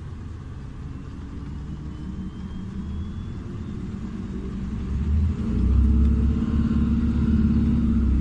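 Iveco Urbanway 12 Hybrid diesel-electric city bus running with a low rumble and a faint rising whine. About five seconds in, its engine steps up to a much louder, deeper drone whose hum rises in pitch.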